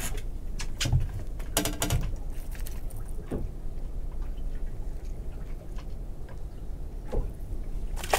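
Small clicks and metallic rattles of a fishing hook and lure being handled as a pouting is unhooked. A short cluster of rattles comes about a second and a half in, with single clicks scattered after, over a low steady rumble.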